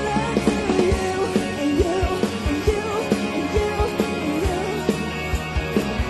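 Rock band playing a song with singing, electric guitar and a steady kick-drum beat.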